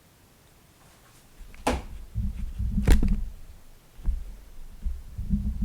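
Handling noises close to the microphone after a stretch of near silence: a few sharp clicks and knocks, each with a low thud, starting about a second and a half in and coming roughly once a second.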